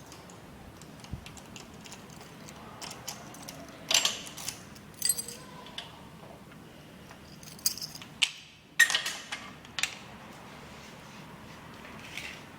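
A bunch of keys jangling in several short bursts of sharp metallic jingles and clicks, the loudest clusters about four seconds in and again from about eight to ten seconds in.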